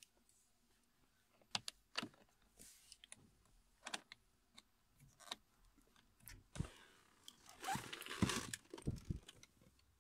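Quiet, scattered clicks of a small screwdriver and plastic trim being handled while T20 screws are undone from the back of a steering wheel trim. From about six and a half to nine and a half seconds in there is a spell of rustling and rattling, loudest near the eight-second mark.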